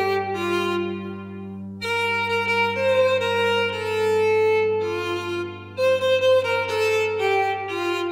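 Solo violin playing a slow melody of long bowed notes over a sustained low drone.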